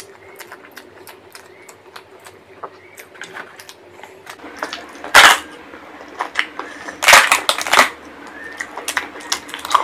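Close-miked mukbang chewing with many small mouth clicks, then loud crackling of crisp papad (papadum) being bitten and broken: one short crackle about five seconds in and a longer run of crackles around seven seconds.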